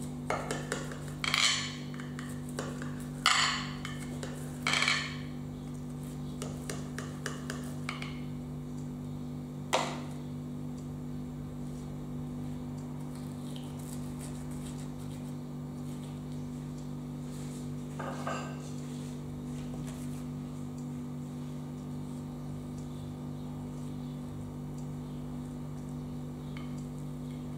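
A knife cutting through a soft chocolate cake and scraping against the bottom of a glass baking dish: several short scraping strokes in the first five seconds, then a single sharp click about ten seconds in. Quieter scrapes follow as a slice is lifted from the dish.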